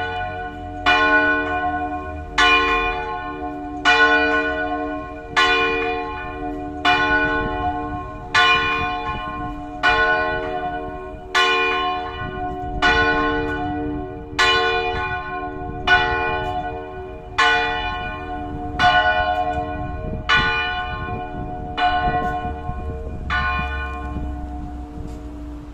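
A church bell swinging in its tower and tolling, one stroke about every one and a half seconds, each stroke ringing on and fading into the next; the last stroke comes near the end. It is the bell being rung to call people to mass.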